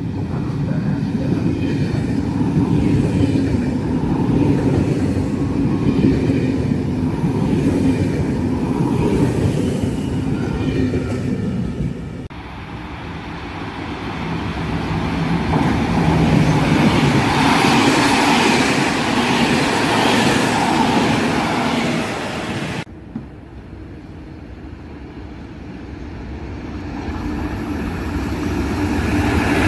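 Three trains passing in turn, each clip cut off abruptly. First a passenger train rumbling past; about twelve seconds in, a freight train hauled by an E494 electric locomotive, its rumble and hiss growing louder; about twenty-three seconds in, a high-speed train approaching, getting louder near the end.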